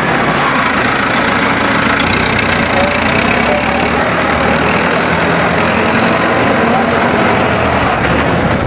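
Farm tractor's diesel engine running steadily as the tractor works its front loader in sand.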